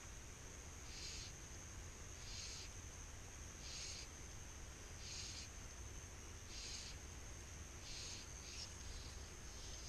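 Insects calling: a steady high-pitched drone with a raspy buzz that repeats about every second and a half.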